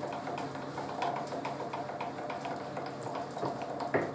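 Vertex K6 milling vise being slid by hand across the cast-iron mill table: light metal scraping and small clicks, with a sharper knock near the end. A steady low hum runs underneath.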